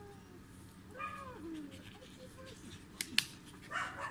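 Samoyed dog making a short vocal call about a second in that rises and falls in pitch, followed by a few smaller calls. Two sharp clicks come about three seconds in, and a short noisy burst comes near the end.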